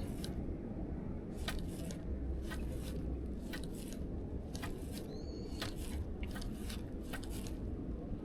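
A small bird gives one short chirp about five seconds in, over a steady low rumble of wind on the microphone and scattered sharp clicks.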